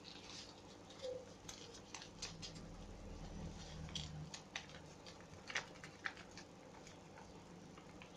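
A sheet of white paper being folded and tucked by hand: soft rustling and crinkling with scattered small crackles. The sharpest come about five and a half and six seconds in.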